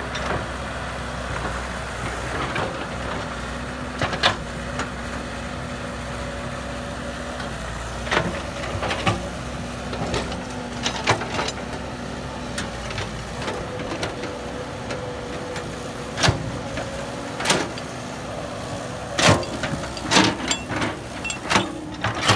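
Heavy diesel engine running steadily, its pitch stepping up about two-thirds of the way through, with scattered sharp knocks and clanks that come more often near the end.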